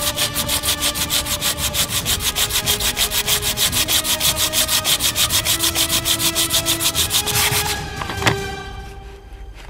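Sandpaper disc on a hand-held sanding pad rubbed rapidly back and forth over cured epoxy resin, in an even rhythm of several strokes a second, smoothing the resin's cut edge. The sanding stops a little before eight seconds in, followed by a single knock.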